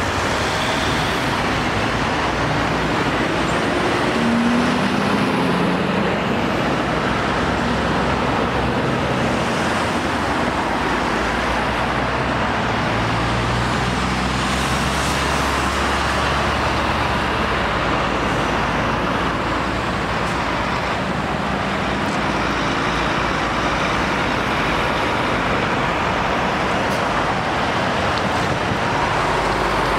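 Steady road traffic passing by: cars, vans and diesel lorries going round a roundabout, with tyre noise and engines pulling through. A heavy lorry's low engine drone stands out about halfway through.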